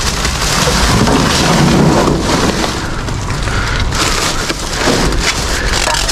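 Plastic rubbish bags crinkling and rustling as hands rummage through them and pull one open inside a large plastic bin, a dense crackling with many small crackles.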